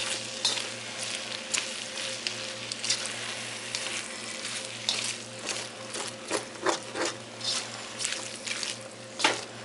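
Stir-frying rice noodles, tofu and vegetables in a hot wok: a steady sizzle while tongs toss the food, with frequent irregular clicks and scrapes of the tongs against the pan.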